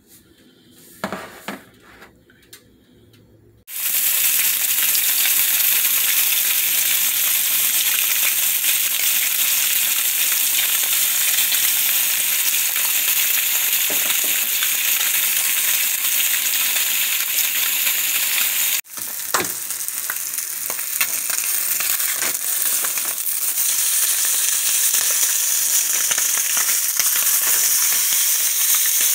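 White fish fillets searing in hot oil in a nonstick skillet: a loud, steady sizzle that starts suddenly a few seconds in, after some short knocks. It breaks off for an instant about two-thirds through, then carries on with a few clicks.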